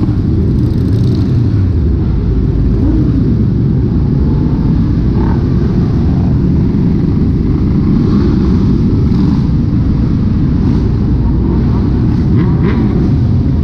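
A large group of motorcycles riding together, with many engines making a loud, steady, low rumble.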